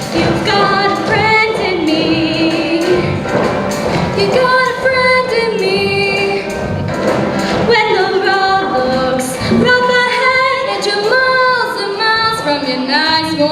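Show choir singing with instrumental accompaniment.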